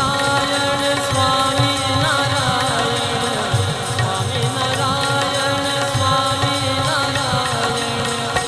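Swaminarayan devotional music: a wavering melody over a steady drone, with a low drum beat.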